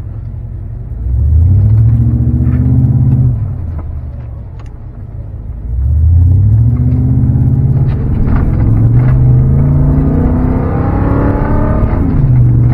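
Chevrolet Silverado's 8.1-litre Vortec V8 under hard acceleration on a test pull, heard from inside the cab. The engine note rises about a second in and eases off a couple of seconds later. A second, longer pull starts at about six seconds, its pitch climbing in steps as the transmission shifts up.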